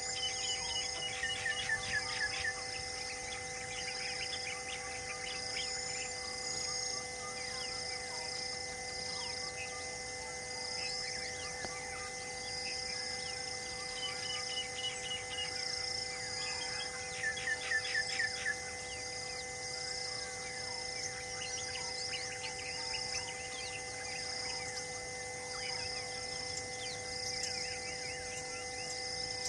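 Forest ambience of birds and insects: quick runs of descending whistled bird notes about two seconds in and again past halfway, a short high chirp repeating about once a second, and a steady high insect buzz, all over a soft held musical drone.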